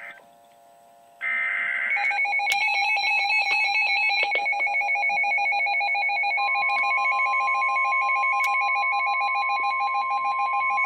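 Weather alert radio sounding an emergency alert. A short burst of screechy data tones comes about a second in, then a loud electronic alarm beeping in rapid pulses. About six seconds in, a steady high tone joins it: the NOAA 1050 Hz warning alarm tone that comes before a warning message.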